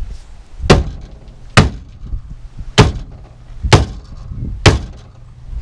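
Heavy hammer striking the bent steel front frame rail of a BMW E36 five times, about a second apart, to flatten it.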